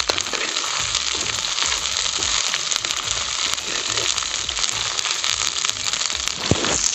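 Sliced onions and ginger-garlic paste sizzling steadily in hot ghee in an aluminium karahi, stirred with a slotted metal spoon.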